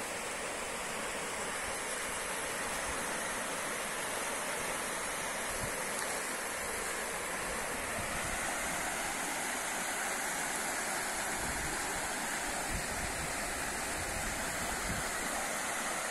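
Water rushing out from under the sluice gates of a small concrete barrage and churning into the river below, a steady rush.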